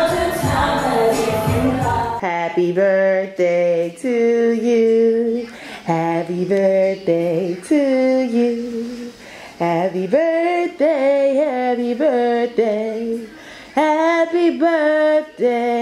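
Music with full backing for about the first two seconds, then a woman singing alone with no accompaniment, holding long notes with a slight waver.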